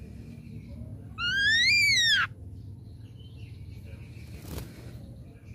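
Ashy drongo giving one loud whistled call about a second long, rising in pitch and dipping at the end. A faint click follows a few seconds later.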